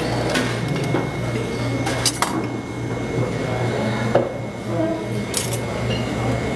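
Metal serving tongs clinking against a glass salad bowl and a ceramic plate while lettuce is picked up: a handful of short, sharp clinks, a pair close together about two seconds in, over a steady low background hum.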